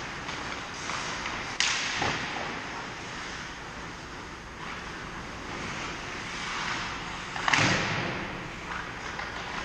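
Ice hockey play in a large indoor rink: a steady wash of skates on the ice, with two sharp bangs that echo around the arena, one about a second and a half in and another about six seconds later.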